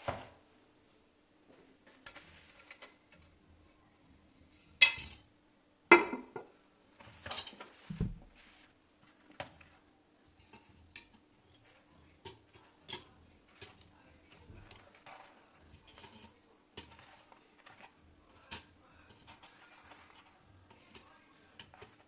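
Eggs being lifted from a pulp egg carton and set one at a time into a wire egg basket. A few louder knocks and rustles come a few seconds in, then a long run of light taps and clinks as each egg touches the wire and the other eggs. A faint steady hum runs underneath.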